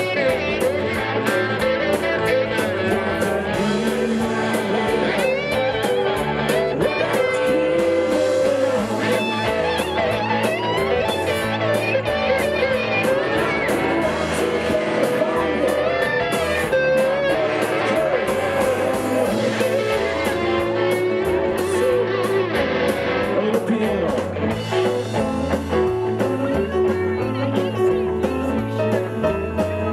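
Live Southern rock band playing, with electric guitars over drums and bass. Guitar lead lines bend in pitch over a steady beat.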